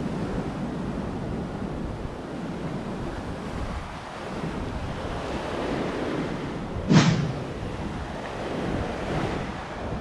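Small Caribbean surf washing up and rolling back on a sandy shore, with wind on the microphone. A sudden short loud burst of noise comes about seven seconds in, and a softer rush near the end.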